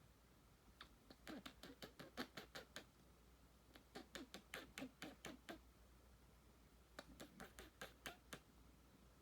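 Chinchilla courtship calls: three bouts of quick chirping calls, about six a second, each bout lasting one to two seconds.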